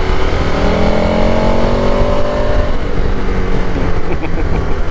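KTM 1290 Super Adventure's V-twin engine accelerating in third gear, its note rising steadily for the first two to three seconds and then levelling off, over heavy wind noise.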